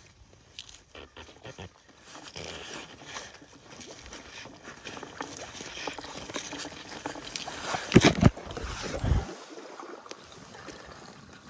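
Water sloshing and scuba gear bumping and rubbing as a diver surfaces in a hole cut in pond ice, with irregular scraping throughout and two loud knocks about eight seconds in.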